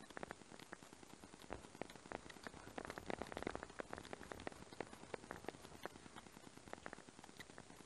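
Kitchen knife cutting through soft bracken-starch jelly and tapping on a wooden cutting board: a run of faint, irregular clicks, thickest about three seconds in.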